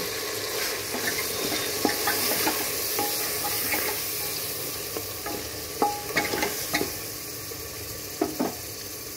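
Mutton and spice powders sizzling in hot mustard oil in an aluminium pot while being stirred and fried with a wooden spoon (the bhuna stage of a curry), with the spoon knocking and scraping against the pot now and then.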